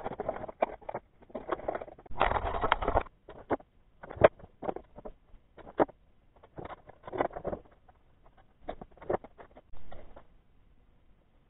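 Workshop hand-work noises from assembling a motor controller on an aluminium bracket: irregular clicks, knocks and short scraping or rustling bursts, with a longer noisy burst about two seconds in and a sharp knock about four seconds in.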